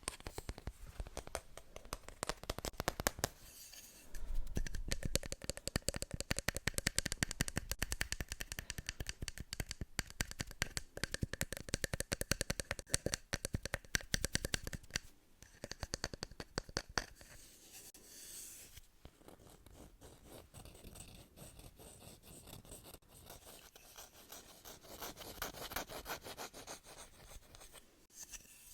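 Close-miked ASMR scratching and rapid tapping on an object. It is fast and dense for the first half, then turns quieter and sparser.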